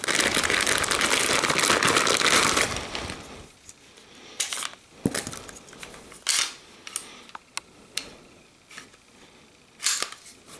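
Thin plastic bag crinkling loudly for about three seconds as a pistol is pulled out of it, then scattered light clicks and knocks as the pistol is handled.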